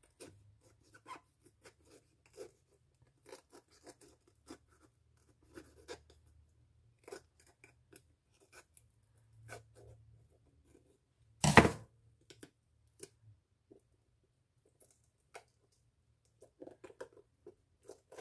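Kitchen knife cutting around the stem of a raw green bell pepper: a string of short, crisp crunches and snaps as the blade goes through the firm flesh, with one louder crack about eleven seconds in.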